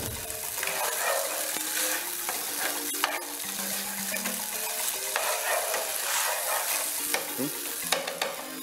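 Carrots and pasta sizzling in vegetable oil in a frying pan as they are stirred and tossed, with clicks of the utensil against the pan and a sharp tap about three seconds in.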